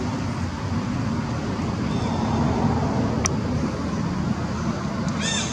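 Steady low rumbling outdoor background noise, with a sharp click about three seconds in and a short high-pitched call near the end.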